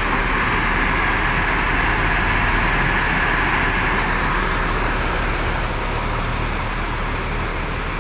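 Rear-mounted diesel engine of an intercity bus idling steadily with its engine bay open, running slightly rough ('pincang', limping), which the crew put down to dirty or mixed diesel fuel.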